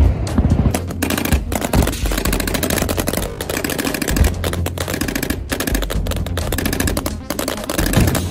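Rapid automatic rifle fire in bursts and strings of shots, over background music.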